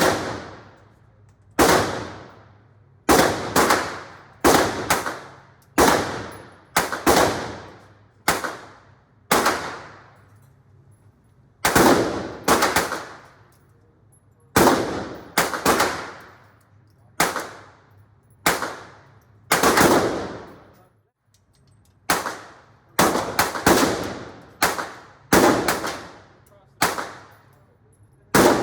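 Gunshots fired one at a time at a steady pace, roughly one a second, some in quick pairs, each followed by a short echoing decay.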